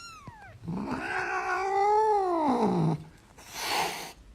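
Domestic cat yowling: a short falling cry, then one long drawn-out yowl that rises and falls in pitch. A short hiss follows near the end.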